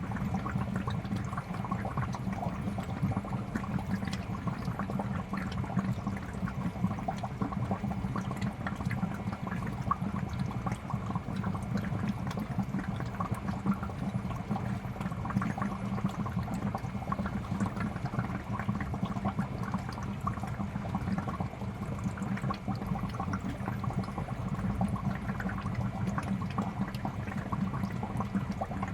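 Aquarium air bubbler: a steady stream of bubbles rising and popping at the water surface in a fish tank, a continuous dense gurgle.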